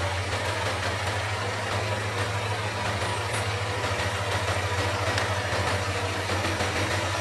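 Diesel engine running steadily: a constant low hum under an even wash of noise, with no rise or fall.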